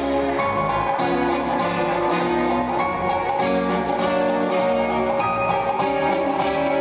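Instrumental dance music for a ballroom quickstep, with plucked string instruments over a steady beat.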